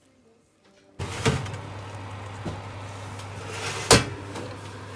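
After about a second of near silence, a steady low hum starts suddenly, with a few sharp knocks and thumps over it, the loudest one near the end.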